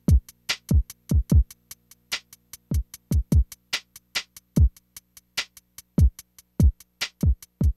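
Electronic background music with a drum-machine beat: deep kicks that drop in pitch, quick hi-hat ticks, and a held low bass note underneath.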